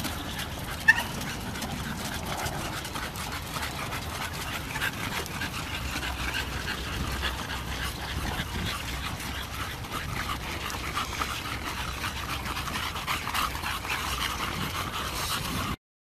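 A group of English bulldogs panting as they walk on leashes, with a short high whine about a second in. The sound cuts off suddenly just before the end.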